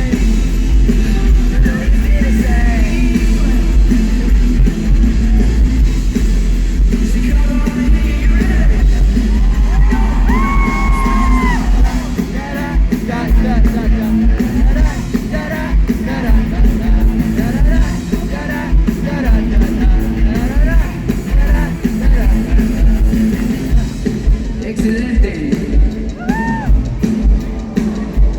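Live pop-rock band playing loud in an arena, heard from the crowd: heavy bass and guitar under voices singing and yelling. The bass holds steady at first and turns to a pulsing beat about twelve seconds in.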